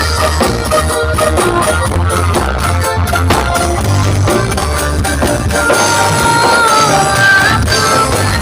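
Loud music with heavy bass blasting from a horeg sound system, the stacked loudspeaker rigs of an East Javanese carnival procession.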